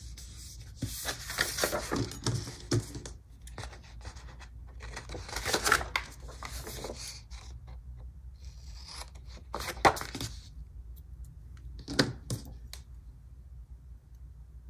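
Paper stickers and sticker sheets being handled, peeled and pressed down: rustling in several short bursts, with two sharp clicks in the second half.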